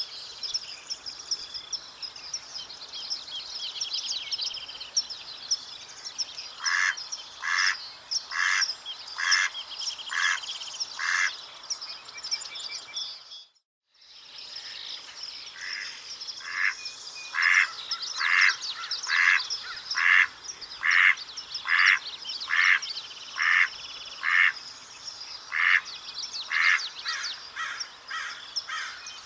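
Mallard quacking in two runs of evenly spaced quacks, a little more than one a second, the first run of about seven quacks, the second longer and louder before tailing off. Songbirds sing steadily behind, and the sound drops out briefly between the runs.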